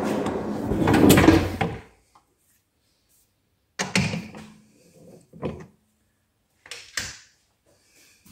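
Metal lathe spindle and chuck running, then running down and stopping about two seconds in. A few seconds later come several separate sharp clunks, one followed by a short low ring.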